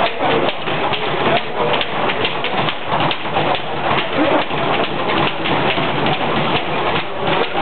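Boxing gym din during a sparring session: a dense, steady clatter of quick sharp knocks over a continuous wash of noise.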